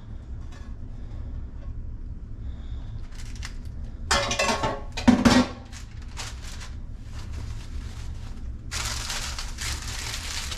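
Kitchen handling noises over a steady low hum: a few rustles and knocks about four to five seconds in, then an even hiss from about nine seconds in.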